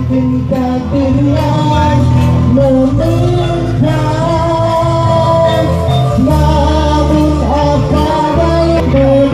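Loud music with a singing voice over a steady, heavy beat.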